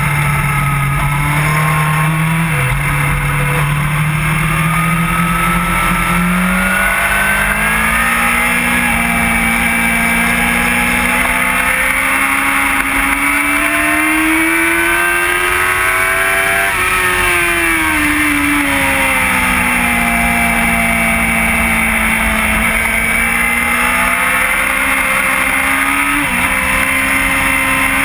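Yamaha R1 inline-four engine heard from on board at track speed, over steady wind rush. Its pitch climbs steadily for about ten seconds under hard acceleration, drops sharply as the bike slows for a corner, then climbs again, with a brief dip near the end.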